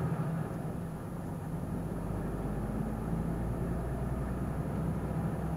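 Truck's diesel engine running with a steady low hum as the lorry drives slowly away.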